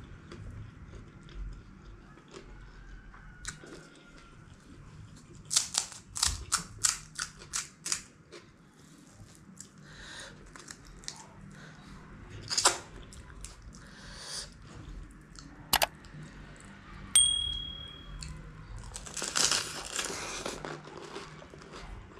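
Close-miked eating: crisp pani puri shells cracking and being chewed, with a quick run of sharp crunches a few seconds in and single loud crunches later, between quieter chewing and lip smacks. Near the end comes a wet slurping stretch of a few seconds.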